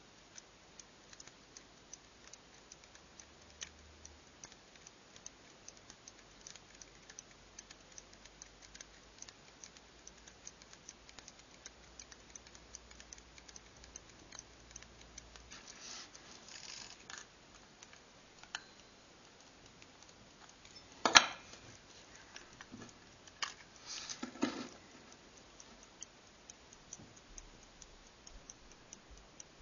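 Verge-escapement fusee pocket watch ticking quickly and evenly. A loud sharp click comes about two-thirds of the way through, and a short clatter a few seconds later.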